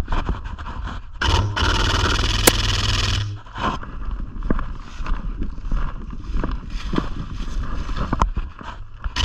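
Scraping and rustling against a body-worn camera's microphone, in a loud burst of about two seconds starting a little over a second in. Scattered sharp clicks come before and after it.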